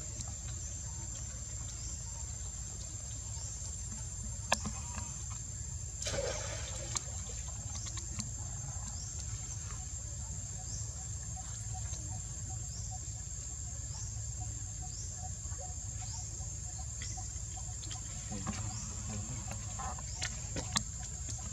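Outdoor ambience: a steady high-pitched drone, a short falling chirp repeating about once a second, and a low rumble underneath, with a few faint clicks.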